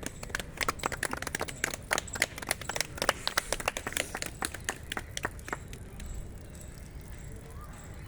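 Water from a jal neti lota draining out of the nostril and splattering in quick, irregular drips, which stop about five and a half seconds in.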